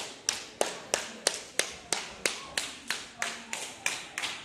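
Hands clapping in a steady rhythm, about three claps a second.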